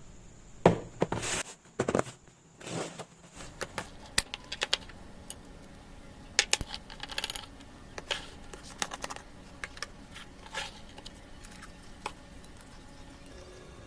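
A wooden jar being refilled: small hard items clatter and click against the wood. There is a run of louder knocks in the first few seconds, then scattered lighter clicks.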